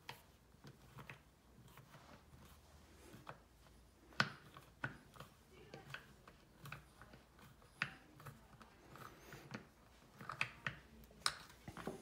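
Faint, irregular clicks and ticks of a crosshead screwdriver turning a wood screw by hand through a side panel into the shelf of a small wooden spice rack. A few sharper clicks come about four seconds in, near eight seconds, and near the end.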